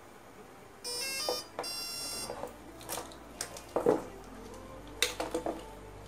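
Brushless ESC power-up beeps sounded through its A2212 outrunner motor as power is connected: a short run of stepped tones, then a longer steady beep. These are followed by plastic clicks and rattles as connectors and a servo tester are handled.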